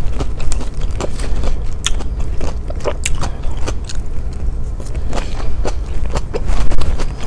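Close-up crunchy chewing of a raw vegetable salad of lettuce, cucumber, radish and leafy greens, heard through a clip-on microphone as many small, irregular crunches.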